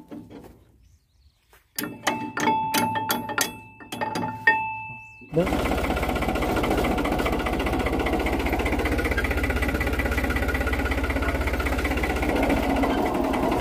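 Metallic knocking and rattling for a few seconds, then a tractor's diesel engine starts suddenly about five seconds in and keeps running steadily.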